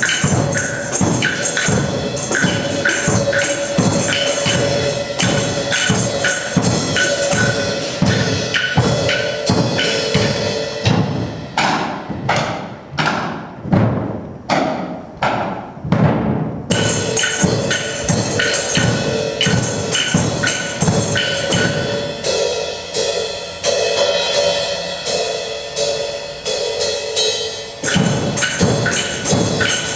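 Percussion music with a fast, steady beat of sharp wood-block-like hits over a held tone. About twelve seconds in, the beat thins to single ringing strokes about two a second, then the full beat returns.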